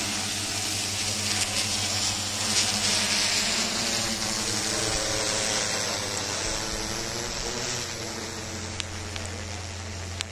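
Quadcopter drone's propellers buzzing in flight, the pitch of the hum wavering about halfway through as it manoeuvres. The sound grows fainter toward the end as the drone climbs away.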